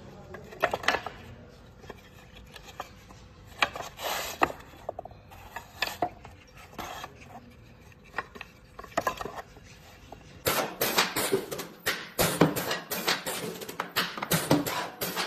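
Wooden stretcher bars clacking and knocking against each other as they are handled, in scattered light taps. About ten seconds in, a denser, louder clatter takes over.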